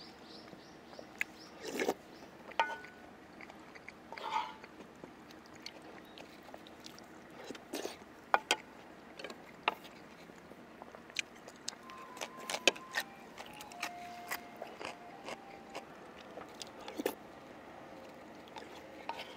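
Close-miked eating sounds: chewing and biting of noodle soup and dumplings, with scattered sharp clicks of utensils against a bowl.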